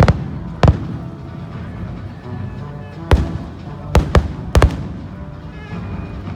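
Aerial fireworks shells bursting in sharp bangs: one right at the start, another under a second in, then four more between about three and five seconds in. Music with sustained notes plays underneath.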